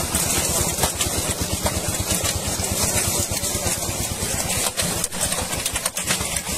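A small engine running steadily, with an even, fast pulse. A few sharp knocks or splashes stand out over it.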